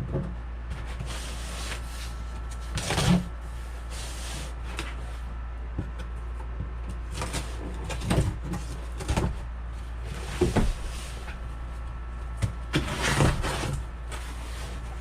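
A cardboard shipping box and its packaging being handled and opened: irregular rustles, scrapes and light knocks, over a steady low hum.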